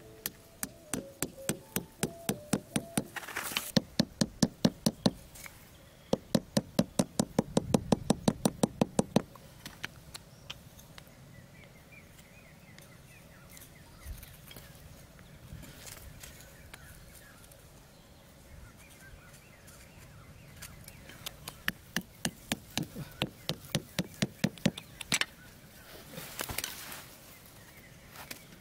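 The back of a small axe head hammering short wooden stakes into sandy ground: runs of quick, even knocks, several a second, in three bouts with pauses between.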